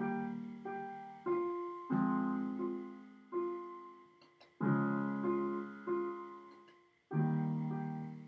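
Digital piano playing a slow introduction, recorded dry with no effects: chords struck one after another, a new one every second or so with lighter notes between, each left to ring and fade.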